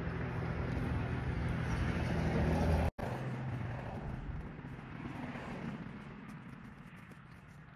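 Road traffic: a passing vehicle's engine hum grows louder over the first three seconds and cuts off abruptly, followed by quieter vehicle noise that fades away.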